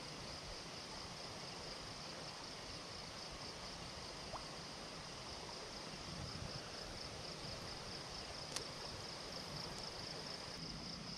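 Riverbank ambience at night: a steady rush of flowing river water under a constant high-pitched hum, with one faint sharp click about eight and a half seconds in.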